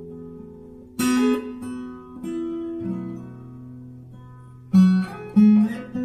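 Background music on acoustic guitar: strummed chords about a second in and twice near the end, with the notes ringing on between them.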